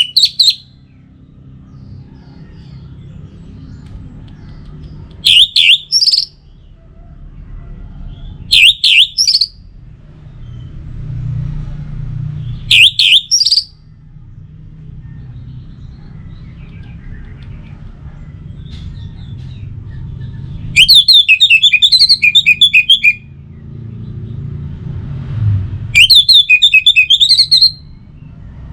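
Orange-headed thrush singing loud, separate phrases several seconds apart: three short phrases, then two longer, faster warbling phrases near the end. A low steady rumble fills the gaps.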